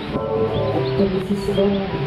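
Music: a song playing, its melody holding long, steady notes over an accompaniment.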